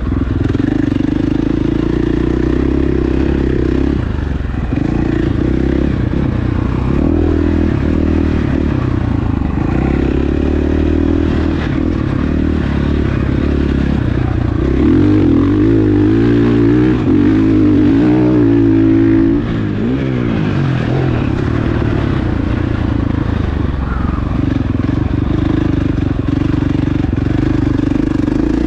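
KTM 450SXF's four-stroke single-cylinder engine running under changing throttle on a motocross track. The note rises and falls, is loudest a little past halfway, and drops briefly twice as the throttle is rolled off.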